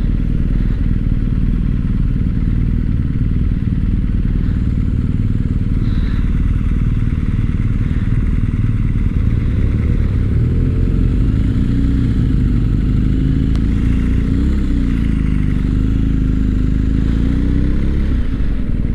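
BMW R1250 GS boxer-twin engine running at low speed with a steady low rumble. Its note wavers up and down in the second half.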